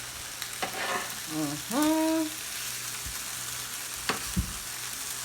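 Veggie burger patties sizzling on a grill, a steady frying hiss. A short hummed vocal sound comes about two seconds in, and there are a couple of light knocks, likely utensils on the pan.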